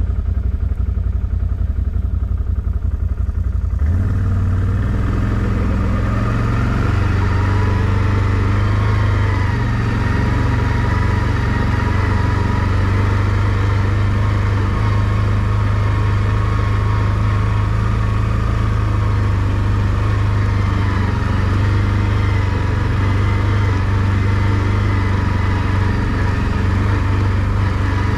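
ATV engine running steadily as the quad rides along a dirt trail. About four seconds in, the engine sound grows fuller and stays even from there.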